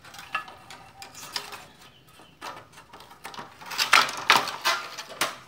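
Aluminium U-channel and board clattering and scraping against a tile floor as they are handled and fitted together: a run of sharp clacks, loudest about four seconds in.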